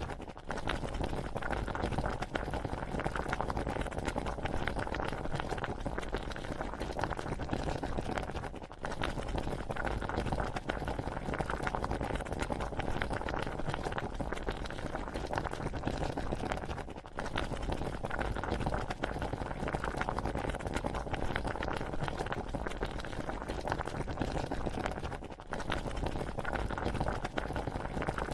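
Cooking liquid bubbling and crackling steadily at the boil, dipping briefly three times.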